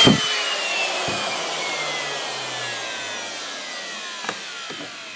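Electric plunge router winding down after being switched off, its motor whine falling steadily in pitch and fading away. A light knock about four seconds in.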